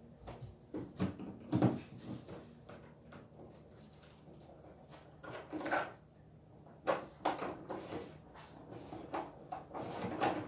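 Irregular knocks, clatter and rustling of someone rummaging for and gathering craft supplies, the loudest knock about one and a half seconds in.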